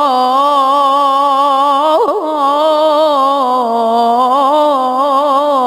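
A child's voice chanting an Islamic devotional supplication: one long melismatic held note with wavering ornaments and a quick ornamental run about two seconds in.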